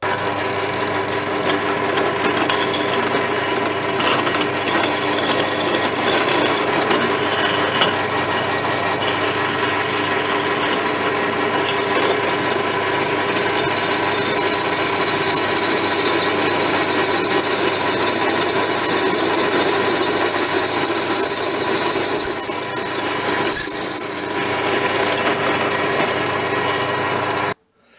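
Electric drill running steadily with its bit grinding on a stainless steel pot lid, failing to cut a hole through the hard steel. From about halfway a high squeal of the bit rubbing on the steel joins and grows louder, then eases off, and the drill stops suddenly just before the end.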